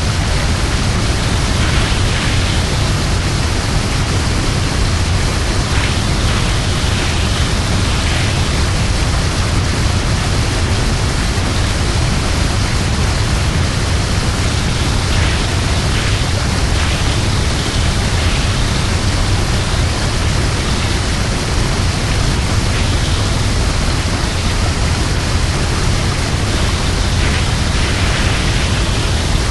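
Large waterfall: a loud, steady rush of falling water with a deep low rumble underneath, unchanging throughout.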